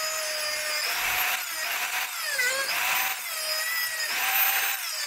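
Dremel rotary tool grinding down overlong metal screws on a drone frame: a steady high whine that sags in pitch several times as the wheel bites into the metal, over a gritty grinding hiss.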